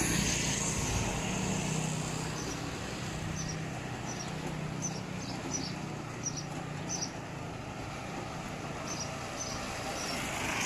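Street ambience: a vehicle engine hums low in the first half, with short high bird chirps repeating through the middle, over steady background traffic noise.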